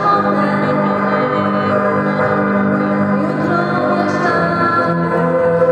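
A song played live by a school band: electric guitars holding ringing chords, with a girl singing into a microphone over the PA.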